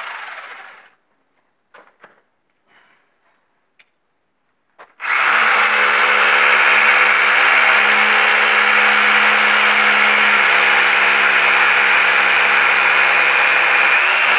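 Corded handheld power tool winding down over the first second, then a few faint knocks, then switched on again about five seconds in and running steadily at full speed, its pitch dipping briefly near the end.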